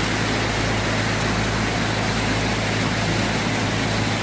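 Boat engine running steadily with a constant low hum, under a wash of rushing water and wind noise.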